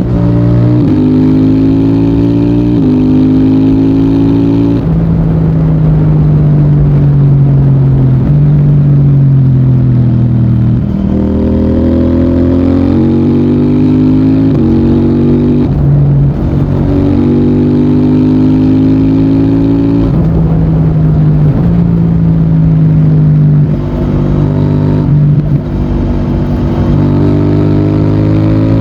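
CFMOTO 800NK Advanced's 799 cc parallel-twin engine and exhaust pulling through the gears. The pitch climbs in quick steps with short drops at each quickshifter upshift, several times over, between stretches of steady cruising and easing off the throttle.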